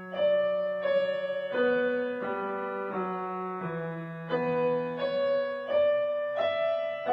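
Background piano music: slow, sustained chords and single notes struck about once every second or less, each ringing out and fading.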